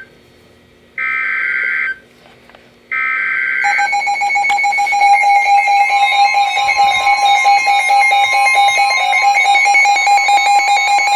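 Emergency Alert System SAME header: two bursts of digital data tones, each about a second long and a second apart. About three and a half seconds in, a loud continuous electronic alert tone begins, holding a steady pitch with a second pitch joining a couple of seconds later. This is the attention signal that opens a new tornado warning.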